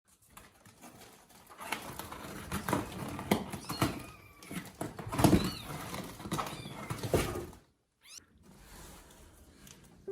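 Kittens mewing in short high-pitched squeaks amid irregular rustling and knocks, with a brief break about three-quarters of the way through.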